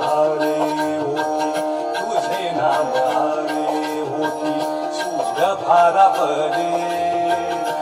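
Background devotional music: a held drone under a wavering melody.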